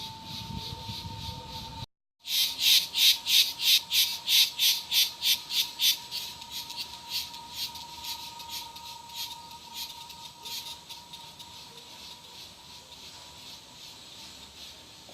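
Cicada song: a loud pulsing call, about three to four pulses a second, that starts just after a brief dropout and fades over several seconds into a fainter steady buzz.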